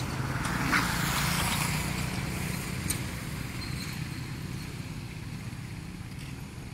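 A motor vehicle engine running steadily with a low rumble, the noise swelling about a second in and then slowly fading.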